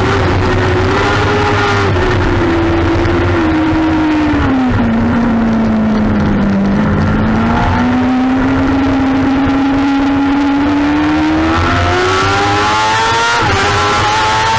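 A 2007 Kawasaki ZX-6R's inline-four engine, heard on board while racing. Its note dips through a corner, then climbs steadily as the bike accelerates down the straight, with two sudden drops in pitch near the end as it shifts up.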